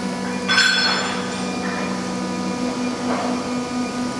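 CNC router spindle running with a steady whine made of several held tones. A brief, noisier burst comes about half a second in, and the lowest tone drops out about two and a half seconds in.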